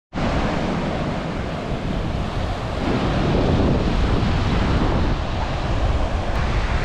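Strong wind rushing and buffeting over the microphone, a steady dense roar heaviest in the low end, starting abruptly.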